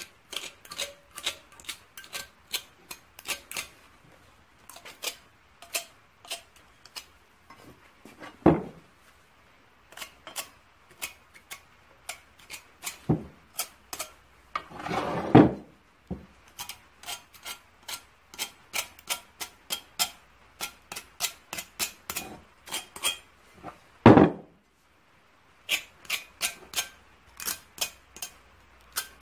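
A small hand tool scraping rust off a cast-iron engine casting in quick, sharp strokes, two to four a second. Three heavier knocks of the cast iron against the steel bench come at intervals.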